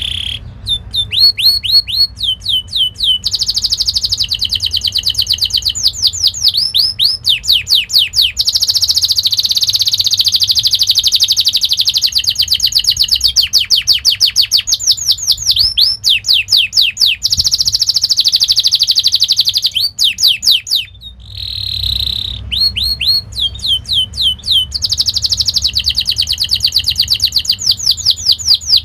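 Domestic canary singing a long, fast song: runs of quick, high down-slurred chirps alternating with long rolling trills, with a brief break about three-quarters of the way through.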